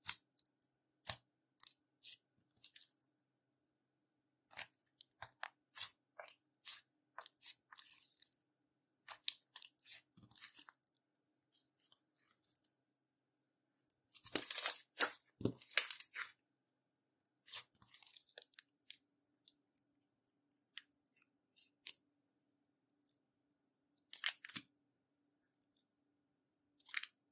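Slime being squished and worked by hand, making sticky clicks and crackly pops in irregular clusters, with the loudest run about halfway through.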